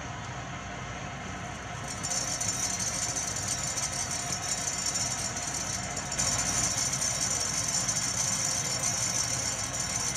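Van de Graaff generator running steadily, its motor and belt making a continuous mechanical noise with a strong high hiss. It gets louder about two seconds in and again about six seconds in.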